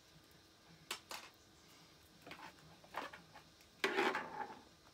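Handling noise of a charging cable and plug being set up and plugged into a portable power station: a few sharp clicks, then a louder clatter about four seconds in.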